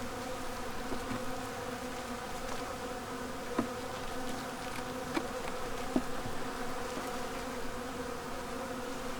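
Steady buzzing of a honeybee colony in an open hive, with a few faint knocks. The beekeeper takes the colony to be queenless: no brood and empty queen cells.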